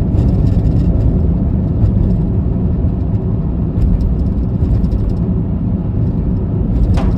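A car driving along a highway, with a steady low rumble of road and engine noise. A drum-led music track starts right at the end.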